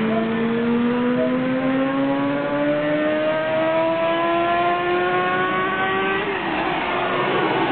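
Honda CBR400 motorcycle engine and exhaust accelerating hard, its pitch climbing steadily as it revs out, then breaking off about six seconds in.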